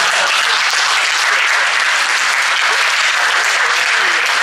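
Audience applauding, a steady run of clapping.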